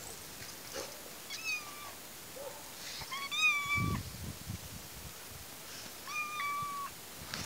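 A domestic cat meowing three times, each meow a drawn-out cry. A low muffled bump comes right after the second, loudest meow.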